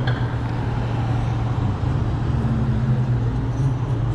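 Steady low rumble of wind and road noise on a helmet- or body-mounted camera while riding an electric bike in traffic, with vehicles running nearby.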